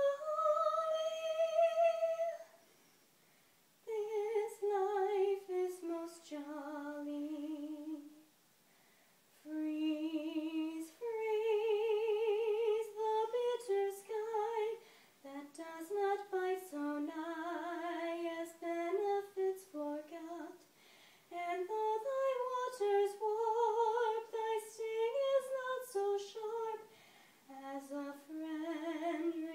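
A woman singing solo with no accompaniment. She holds long notes with vibrato, in phrases broken by short pauses.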